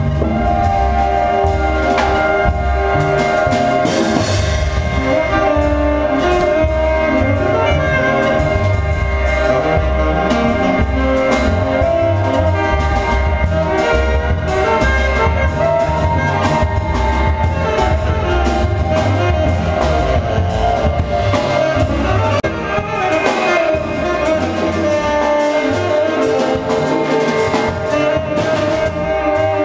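Small jazz band playing a blues live: saxophone playing the lead line with long held notes over upright bass, electric guitar and drum kit.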